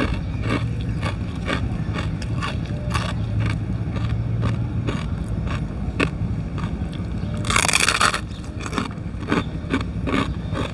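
Chewing crisp fried chicharrón (pork rind) close to the microphone: a run of short, crisp crunches, with one louder, longer burst of about half a second roughly three-quarters of the way through, over a steady low hum.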